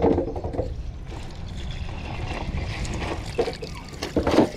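Water trickling and dripping off a cast net and its rope as the net is hauled up out of the water. There is a louder splash near the end as the net breaks the surface.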